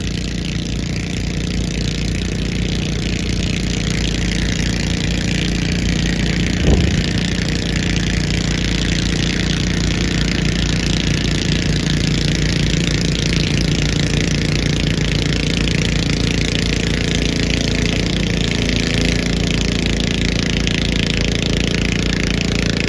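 Garden tractor pulling engine running hard under load as it drags a weight-transfer sled down the track, a steady pulsing engine beat. A brief sharp sound stands out about seven seconds in.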